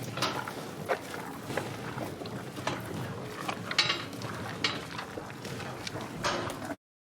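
Holland Lop rabbit moving about, with rustling, soft clicks and a few brief squeaks over steady background noise. The sound cuts off abruptly near the end.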